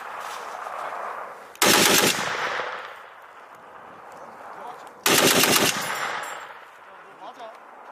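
A tripod-mounted .50-calibre heavy machine gun firing two short bursts, about three and a half seconds apart. Each burst is a quick string of shots lasting about half a second, followed by an echo that fades over about a second.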